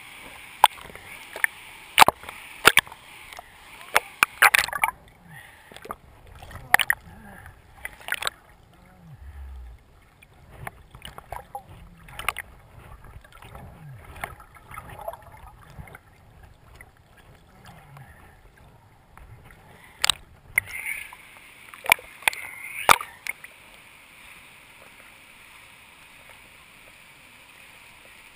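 River water splashing and sloshing against a camera held at the waterline, with sharp splashes in the first few seconds. Through the middle the sound turns muffled and low as the camera goes under. Another run of splashes comes about 20 seconds in, then it settles to a faint steady wash.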